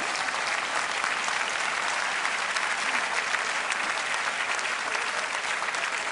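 Large crowd applauding, a dense steady patter of many hands clapping.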